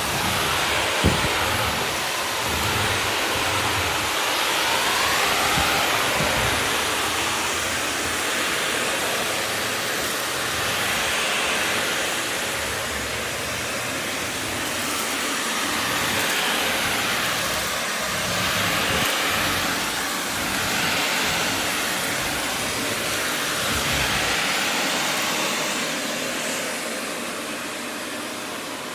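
Upright vacuum cleaner running on a hardwood floor, its steady rushing sound swelling and fading as it is pushed back and forth. A single sharp click about a second in.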